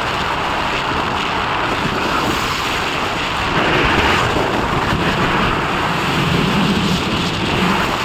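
Steady loud rushing noise of wind buffeting the microphone, with no distinct tone or rhythm.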